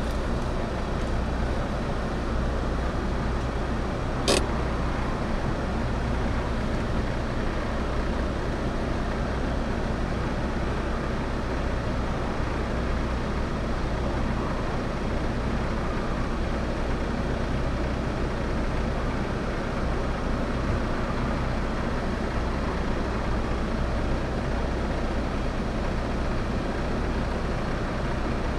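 Car engine idling, a steady low hum, with one sharp click about four seconds in.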